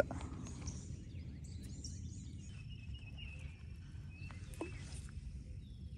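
Quiet outdoor ambience: faint birds and insects calling, with a few short chirps, over a low steady rumble.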